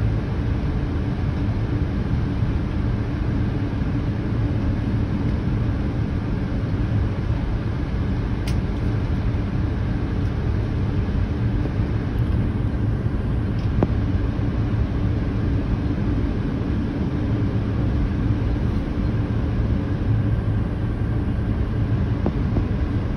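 Steady airliner cabin noise on final approach: the low, even rumble of the engines and the air rushing past, heard from inside the cabin. A couple of faint clicks come about a third and a half of the way through.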